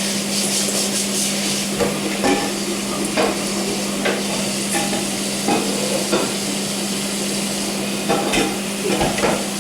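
A utensil stirring food in a pan on the stove, knocking against the pan now and then, over a steady sizzle and a low hum.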